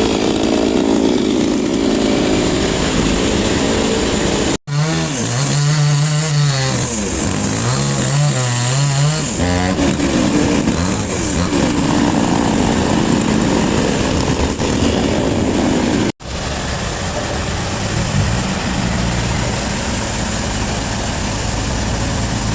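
Sawmill machinery running steadily, with an engine whose pitch wavers up and down for a few seconds after the first break. The sound cuts out for an instant twice, about a third of the way in and again about two-thirds in.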